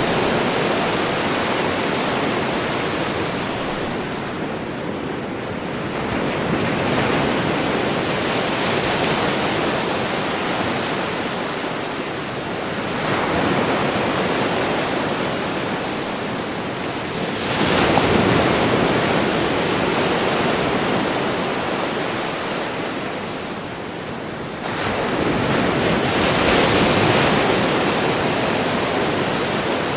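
Sea waves breaking on a beach in a steady wash of surf, swelling with a fresh breaker every five to seven seconds and easing back in between.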